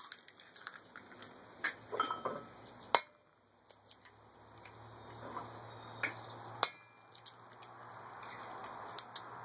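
Eggs cracked against the rim of a stainless steel mixing bowl: a few sharp taps, the loudest about three seconds in.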